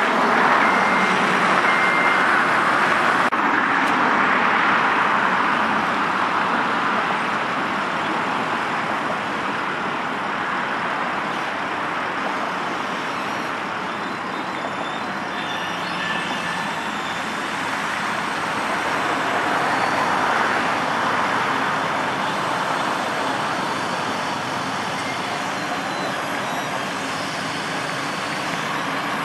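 Telehandler's diesel engine running steadily, easing a little in level partway through and swelling again later. A reversing alarm beeps a couple of times near the start.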